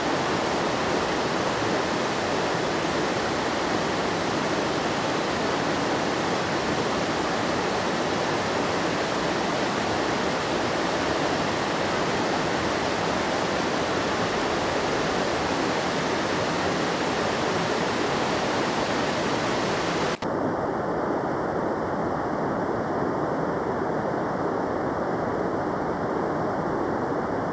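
A swollen mountain river after heavy rain, fast water rushing over rocks as a steady, loud rush. About 20 seconds in it breaks off for an instant and comes back a little duller.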